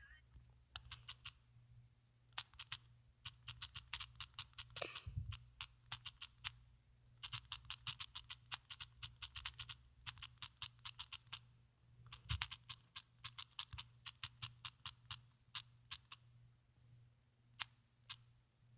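Rapid typing on a keyboard: runs of quick key clicks, about eight a second, broken by short pauses, then two single taps near the end.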